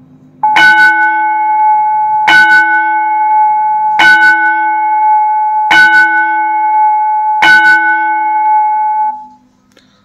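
Bell-chime melody from an automatic school bell timer, played through an amplifier and horn loudspeakers. It is five loud struck chimes on the same note, evenly spaced about 1.7 seconds apart, each ringing into the next. The last one dies away about nine seconds in.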